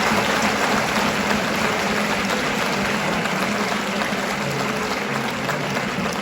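Hall audience applauding steadily, slowly fading.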